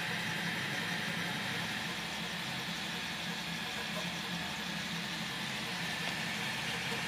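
HyperCube CoreXY 3D printer printing at 80 mm/s: a steady whir of its stepper motors and cooling fans, the low motor hum wavering as the print head moves back and forth.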